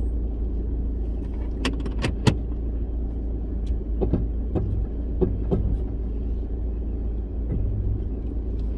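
A 4WD's engine running steadily as it drives a rough dirt track, with several sharp knocks and rattles as the vehicle jolts over bumps; the loudest knock comes about two seconds in.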